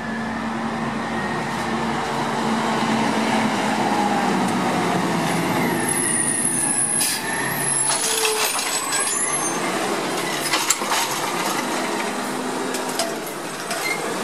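Automated side-loader recycling truck pulling up to the curb with its engine running, a hiss of air brakes about seven seconds in, then the hydraulic arm working with several clunks as it grabs and lifts a recycling cart.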